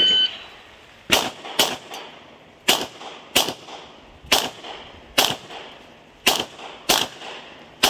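An electronic shot-timer beep starts the run, then a Glock pistol fires about nine sharp shots in roughly paired strings, each shot followed by a short echo.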